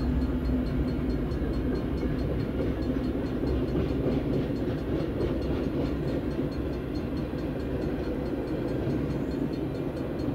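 CN freight train of boxcars and tank cars rolling through a level crossing: a steady rumble of the cars passing on the rails.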